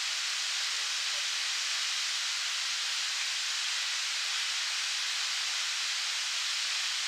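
Fountain jet spraying up and splashing back down into its pond: a steady, high hiss of falling water with no rumble beneath it.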